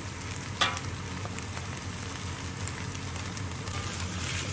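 Mustard greens and egg sizzling in hot oil in a wok, stirred with a metal spatula that scrapes the pan sharply about half a second in.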